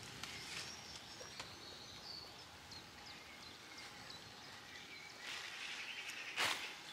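Quiet garden ambience with faint, scattered bird chirps. About five seconds in a rustling hiss picks up, with one sharp knock shortly before the end.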